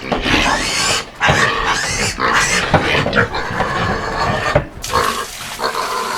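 Several pigs squealing and grunting loudly, a continuous din with brief lulls about a second in and near five seconds.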